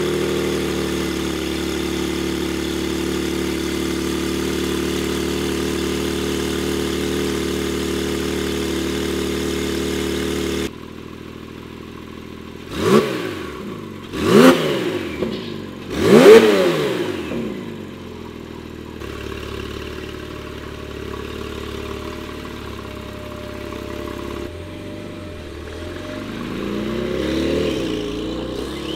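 Porsche 911 Carrera S twin-turbo 3.0-litre flat-six, with Fabspeed high-flow downpipes and a tune, at a steady cold-start idle. It then settles to a quieter idle and gives three short revs, the third the loudest, and near the end the engine pitch rises as the car pulls away at low speed.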